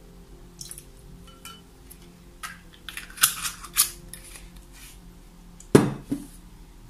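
A bottle being handled: a few light clicks, then a run of short rasping scrapes as its cap is screwed on, and near the end a sharp knock with a smaller one just after as the bottle is set down on a wooden table.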